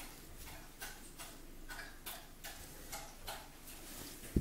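Faint, fairly regular ticking, about two to three ticks a second, with one louder knock near the end.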